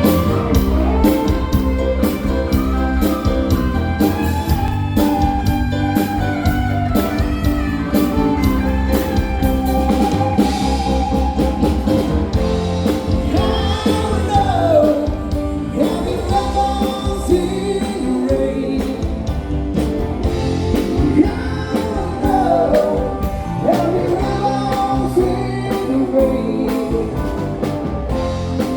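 A song with a sung vocal over a band of guitar and drums with a steady beat, in a rock or blues style.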